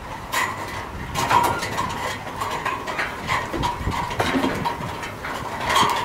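Sheep shuffling in a pen with a wooden slatted floor, their hooves knocking irregularly on the boards.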